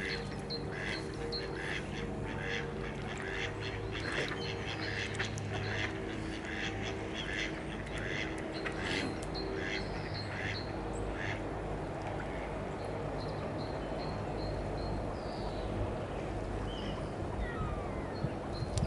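Mallards quacking in a quick repeated series, about two quacks a second, which stops around eleven seconds in. Under it runs a low steady drone from a helicopter overhead.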